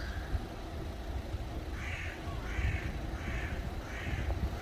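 A crow cawing five times in a row, evenly spaced, starting about two seconds in, over a steady low traffic rumble.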